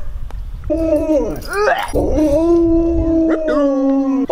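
Husky howling: a long, steady howl that starts about a second in, with a few swooping rises and falls in pitch near its start.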